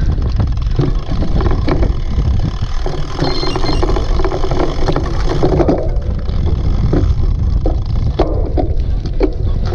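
A cyclocross bike rattling and clattering over rough, bumpy ground during a race, with many sharp knocks, under a steady rumble of wind on the microphone.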